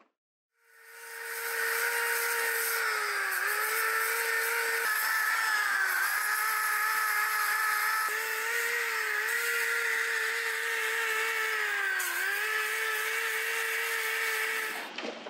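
Electric power sander running steadily with a high motor whine over a hiss, its pitch sagging briefly three times as it is pressed onto the work.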